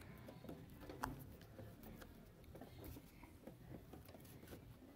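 Faint small clicks and scrapes of a screwdriver tightening a wire under the terminal screw of a lamp holder, with one slightly sharper click about a second in.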